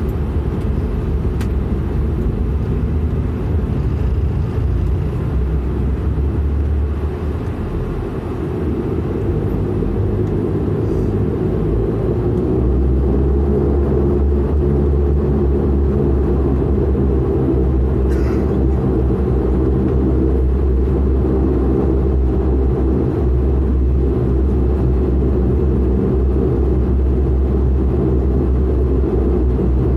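Dash 8-400's Pratt & Whitney PW150A turboprop and propeller running, heard from inside the cabin as a steady low drone. About twelve seconds in the drone grows louder and deeper as the propeller speeds up.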